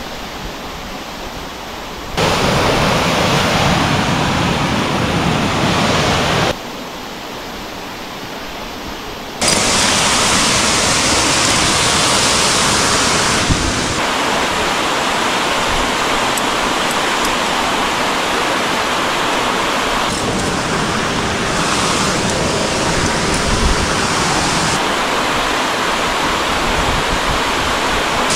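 Steady rushing water of a mountain stream and waterfall, with no distinct events. Its level and tone change abruptly several times, jumping between quieter and louder stretches.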